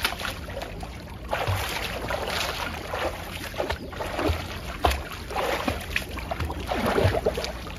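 Front-crawl swimming in a pool: repeated splashes and sloshing water from the arm strokes and kicks, surging about once a second.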